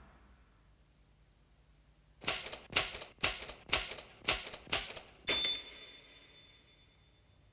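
Typewriter sound effect: about eight sharp key clacks over three seconds, the last one followed by a high bell-like ding that fades away.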